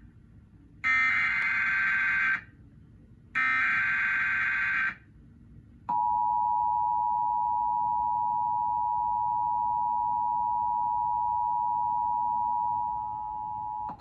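Emergency Alert System tones played through a TV speaker: two bursts of the SAME header's digital data tones, about a second and a half each, then the steady two-tone EAS attention signal held for about eight seconds, dropping a little in level near the end. The tones announce a National Weather Service severe thunderstorm warning.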